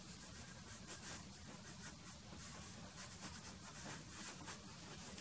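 Soft pastel stick scratching faintly on black pastel paper in many short, irregular strokes as small highlights are laid in, over a low steady hum.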